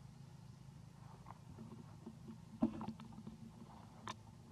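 Faint steady low rumble of background noise, with a few soft clicks and one brief sharper sound about two and a half seconds in.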